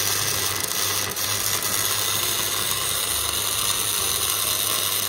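Flux-cored, gasless MIG welder arc crackling and sizzling steadily while a continuous bead is run on 3 mm steel, at a hot setting of about 19.6 V and 100 A.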